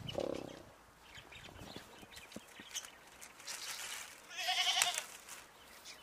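Goats bleating: a short low bleat right at the start, then a louder, higher, wavering bleat about four and a half seconds in, with light knocks and rustles between.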